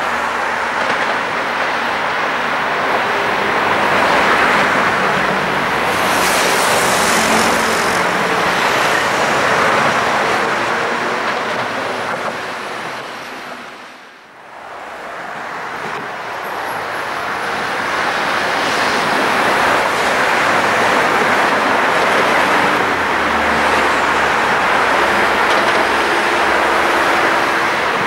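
Steady city road traffic noise beside a tram and rail line. It fades out about halfway through and fades back in. A brief high hiss comes about six seconds in and lasts about two seconds.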